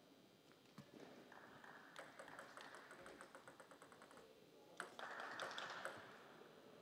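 Faint, quick taps of a table tennis ball bouncing, in two runs with a sharper click just before the second.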